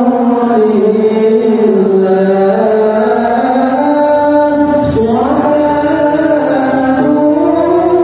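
A man's voice reciting the Quran in melodic tilawah style, holding long ornamented notes that rise and fall slowly. About five seconds in the phrase breaks off and a new one begins with a rising glide.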